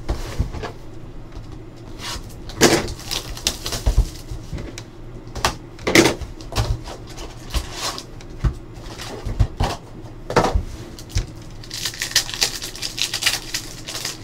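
Cardboard trading-card hobby box (Upper Deck SPX Football) being handled and opened: scattered knocks, taps and cardboard rustles as the flap is lifted. Near the end, a couple of seconds of crinkling as the foil card packs are pulled out and handled.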